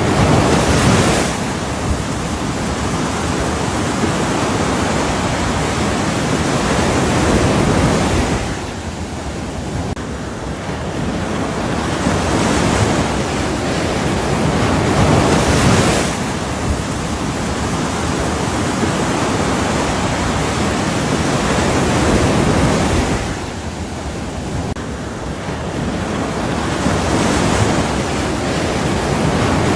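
Ocean surf: a steady wash of waves, with swells that build and then fall away sharply about every seven to eight seconds.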